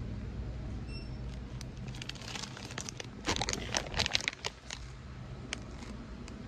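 Plastic crinkling and rustling in short crackly bursts, loudest about three to four seconds in. Under it, a steady low hum fades out about two seconds in.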